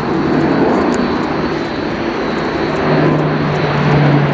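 Airbus A400M's four TP400 turboprops and their propellers droning loudly in flight, with steady low propeller tones that grow stronger and louder in the last second or so.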